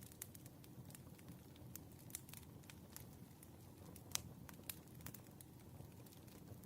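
Firewood burning, crackling faintly with scattered sharp pops over a soft low rumble; the loudest pop comes about four seconds in.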